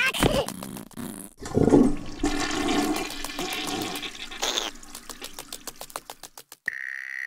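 Water rushing and gurgling like a flush, loudest in the first half and then fading, with a quick run of clicks.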